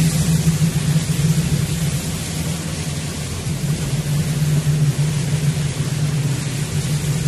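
A vehicle's engine heard from inside while driving, a steady low drone, under an even hiss of tyres on a wet road in the rain.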